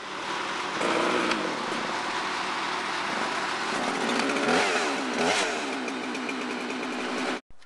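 Gas chainsaw engine running, revving up and down several times, then cutting off suddenly near the end.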